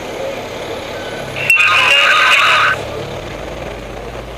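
A two-way fire radio gives a loud burst of crackling static with a few steady tones, about a second long, starting with a sharp click about a second and a half in. Under it runs the low, steady hum of an engine.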